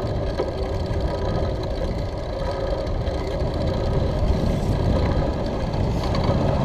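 Wind buffeting the microphone of a handlebar-mounted GoPro on a moving bicycle, a loud uneven low rumble, mixed with road noise from the ride.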